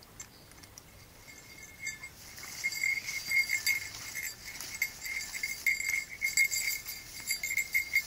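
A small bell on a beagle's harness jingling in quick, uneven shakes as the dog moves, getting louder about two seconds in when the dog sets off.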